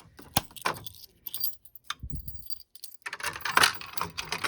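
Keys jangling and clicking in the hand, with a denser, louder jingle about three seconds in.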